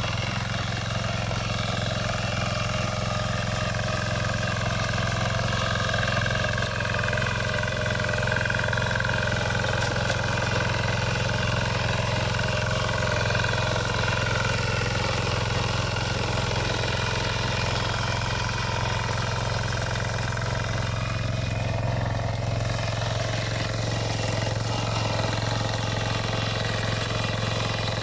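Engine of a walk-behind motor hoe (rotary tiller) running steadily while its tines till the soil.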